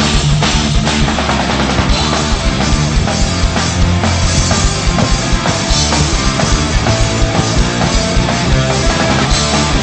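Rock band playing an instrumental stretch of a song, with a full drum kit keeping a steady beat under sustained guitar and bass notes; no singing.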